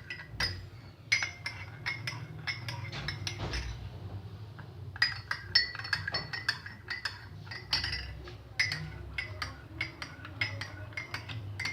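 A metal spoon clinking rapidly against the sides of small cups as honey is stirred into hot kadha, with a brief pause a little before the middle.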